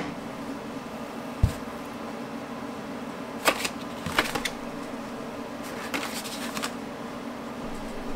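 Cardboard packaging and paper card sleeves being handled: a soft thump about a second and a half in, then several short papery taps and rustles as cards are slid out of the box, over a steady low hum.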